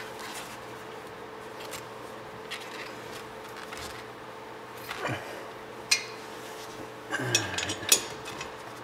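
Metal brake parts, pad and caliper, clinking and scraping as they are handled and fitted over the rotor: scattered sharp clicks, with a quick cluster of clinks near the end.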